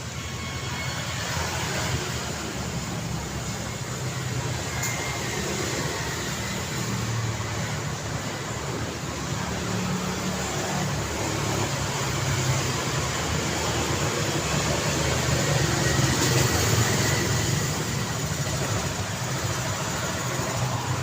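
Steady city street traffic: cars and other vehicles passing and idling, a continuous engine rumble under tyre and road noise, swelling slightly as heavier traffic goes by.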